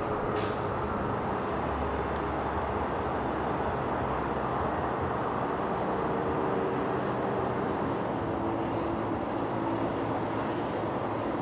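Steady outdoor urban background rumble, like distant traffic, with no distinct events.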